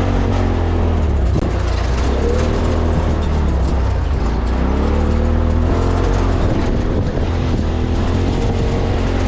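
Side-by-side UTV engine running under load over the trail, its pitch rising and falling several times as the throttle comes on and off, over a constant deep rumble.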